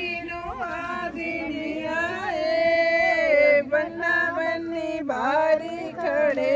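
Voices singing a traditional Punjabi wedding folk song with no instruments, drawing out long held notes, the longest about two seconds in.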